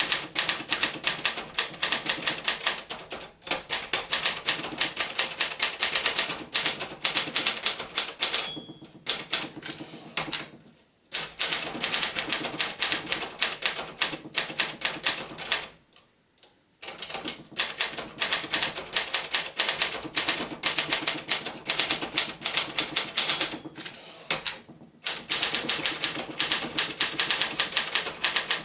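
Brother Accord 10 portable typewriter being typed on at a quick pace, a fast run of key and typebar strikes. Its margin bell rings twice, about a third of the way in and again near the end, and the typing pauses briefly a couple of times.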